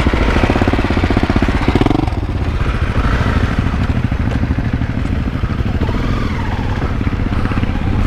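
Honda CRF250L's single-cylinder four-stroke engine under way on a gravel track, pulling away and revving up briefly about two seconds in, then running steadily.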